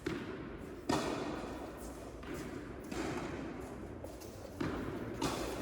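Tennis balls struck by rackets and bouncing on an indoor court: four sharp thuds, two close together at the start and two near the end, each trailing off in the hall's echo.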